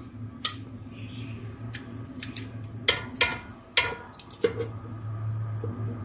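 Metal kitchen tongs clicking and clacking against the air fryer basket and the steak as cooked pieces are lifted out: a quick series of sharp clicks, loudest about three to four seconds in, over a low steady hum.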